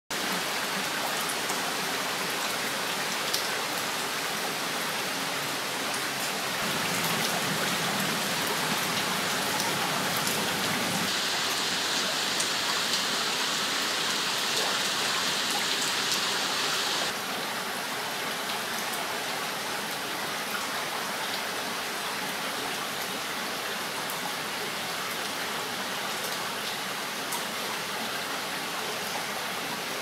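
Steady rain falling on water and leaves, with faint scattered drop ticks. A brighter hiss joins in for several seconds in the middle and stops abruptly.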